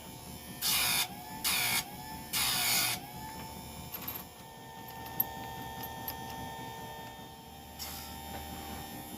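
Small electric motor running steadily, with three short grinding bursts in the first three seconds, consistent with a chainsaw chain being sharpened on an electric grinder, one tooth per touch.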